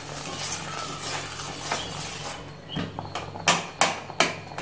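A metal spoon stirring and scraping in a steel kadai, then knocking sharply against the pan about three times a second from about three seconds in, breaking up lumps of jaggery in the liquid.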